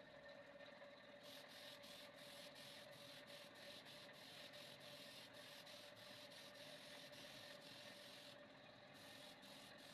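Faint hand sanding, a quick, regular rubbing of about four strokes a second, over a faint steady hum.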